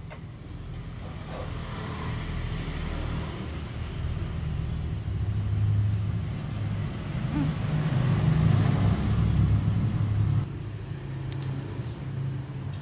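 Low engine drone of a motor vehicle that builds up, is loudest about eight to nine seconds in, then drops off suddenly about ten and a half seconds in.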